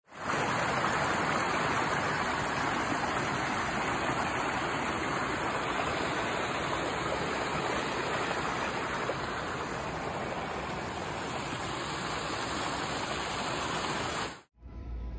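A small stream rushing and splashing over rocks in a steady, loud rush of water that cuts off suddenly near the end.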